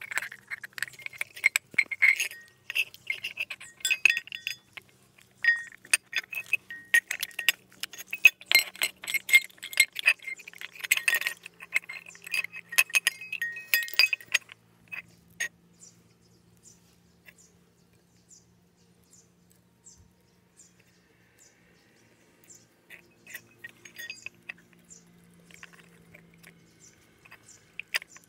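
Small painted metal bells of a hanging garden bell clinking and ringing against each other as it is jostled, rapid and irregular for the first half. At about fifteen seconds it stops, leaving only faint ticks and handling noise, with a few more clinks near the end.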